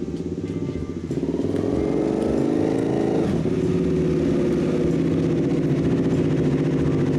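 Honda CBR300R's single-cylinder engine pulling up close, getting louder about a second in. Its note drops around three seconds in and then settles to a steady idle as the bike stops.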